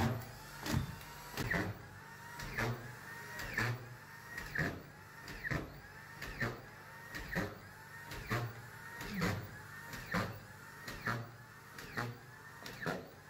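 Corded stand-up auto-feed screw gun driving collated screws into a plywood subfloor, about one a second: each screw a short rising whir of the motor ending in a click. The floor is being screwed down to the joists to prevent squeaks.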